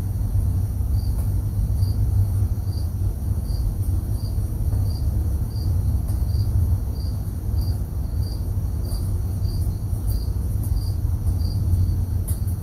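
A short high chirp repeating evenly, about one and a half times a second, starting about a second in, over a louder steady low rumble.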